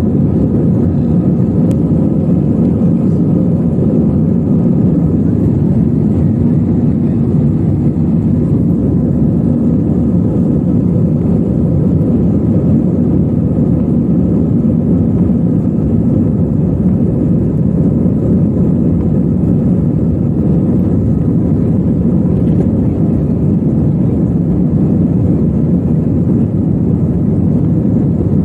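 Steady low drone inside a jet airliner's cabin as it taxis, the engines running at taxi power with an even level throughout.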